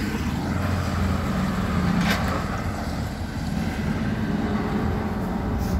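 Diesel engine of a rigid box lorry driving off, a steady low rumble that is loudest in the first couple of seconds.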